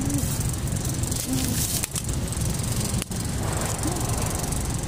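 Vehicle engine running with a steady low rumble and rattling of the cabin, heard from inside the vehicle.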